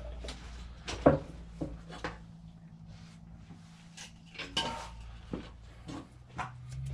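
Scattered metallic clicks and clinks of a steel feeler gauge being worked between a classic Mini's clutch arm and its adjuster to set the free-play gap, a few seconds apart, over a low steady hum.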